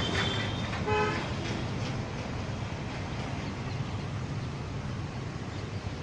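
A short vehicle horn toot about a second in, over a steady rushing noise of traffic and spraying water, with a thin high tone just before it.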